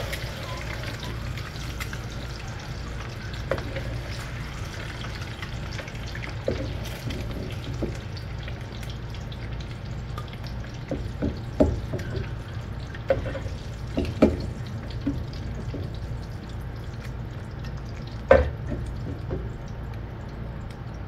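Hot oil sizzling in a frying pan as whole fried boiled eggs are lifted out with a metal spoon, with scattered knocks of the spoon against the pan, the loudest about eighteen seconds in. A steady low hum runs underneath.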